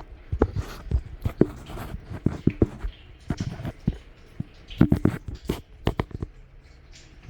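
Irregular clicks and knocks, a few a second, thinning out near the end.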